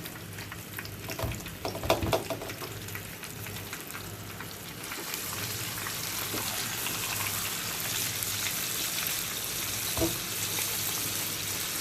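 Flour-coated fish sizzling as it fries in hot oil; the sizzle grows louder about five seconds in. There are a few sharp knocks against the pan, the strongest about two seconds in.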